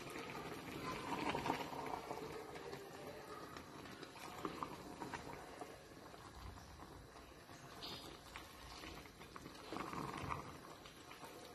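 Thick creamy pasta sauce being stirred with a wooden spatula in a stainless steel pot: wet squelching and bubbling of fettuccine and sauce, with small scattered clicks, louder near the start and again near the end.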